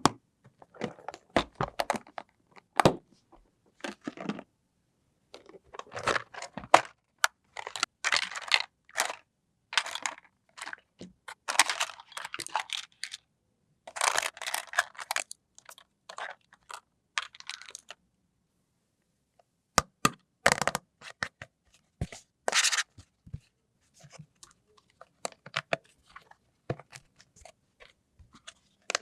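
Packaging of a toy picnic playset being torn and crinkled open, in irregular rustling bursts mixed with sharp clicks and taps. There is a short pause about two-thirds of the way through.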